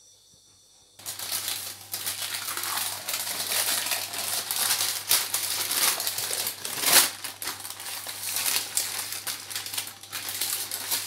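Sheet of baking paper rustling and crinkling as it is handled, with many small crackles, starting about a second in.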